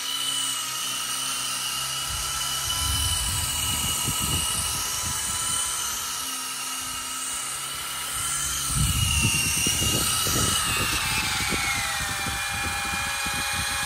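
Small remote-control toy helicopter's electric rotor motors running with a steady high whine, with two bouts of low rumbling. About eleven seconds in the whine drops in pitch as the throttle is eased back.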